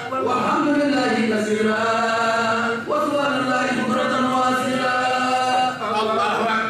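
A man's voice chanting a religious chant in long, drawn-out melodic phrases, with new phrases beginning about three seconds in and again near the end.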